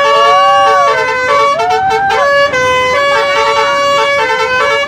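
Bus telolet musical horn playing a loud multi-note tune: held chords that change pitch every half second or so, two siren-like swoops that rise and fall, and quick runs of short beeps on a lower note.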